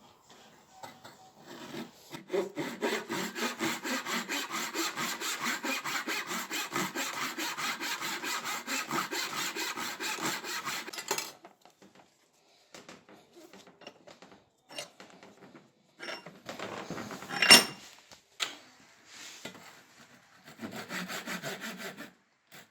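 A hand tool worked in fast, even back-and-forth strokes on an ash handle, sawing or rasping it, for about nine seconds. Then come a few scattered scrapes, a single sharp knock about seventeen seconds in, and a short run of strokes near the end.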